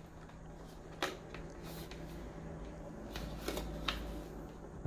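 Plastic work bowl of a Cuisinart Elemental 4-cup chopper being twisted and lifted off its base, with light plastic rubbing and a few sharp clicks: one about a second in and a cluster around three to four seconds in.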